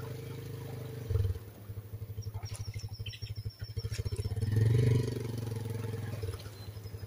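Small motorcycle engine running at low speed with a regular pulse, swelling briefly as the throttle opens about four and a half seconds in. A short thump about a second in.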